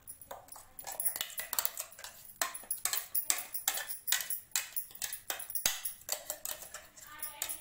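Metal knife scraping and tapping against the inside and rim of a stainless-steel mixer-grinder jar as thick green chutney is scraped out into a bowl: a quick run of clinks and scrapes throughout.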